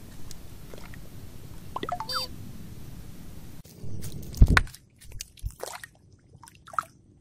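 A splash into shallow water about four and a half seconds in, the loudest sound, followed by small drips and splashes, over rough handling noise before it.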